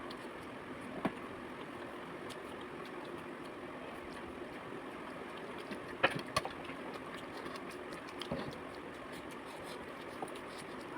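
A few short crunches and clicks of eating over a steady background hum, the loudest pair about six seconds in.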